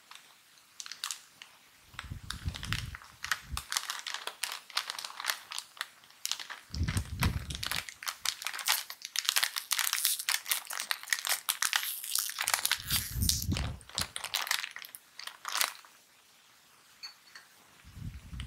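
Plastic snack-chip bags being handled and squeezed, crinkling and crackling in dense bursts. A few dull low thuds come and go as the bags are pressed.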